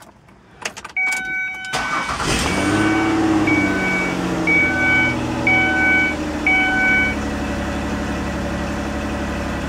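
2001 Ford Escape engine cranking and catching about two seconds in, flaring up and then settling to a steady idle. A dashboard warning chime rings about once a second over the start.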